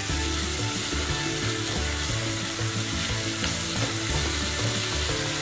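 Chopped onion sizzling steadily in hot oil in a pot while being stirred with a silicone spatula, cooking gently to soften rather than brown.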